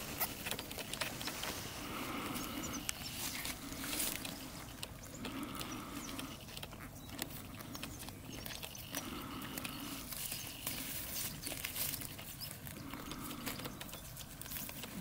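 Sheep grazing at close range: grass being torn and chewed, heard as many short crisp clicks and rips. Slow, regular breaths close to the microphone come and go about every two seconds.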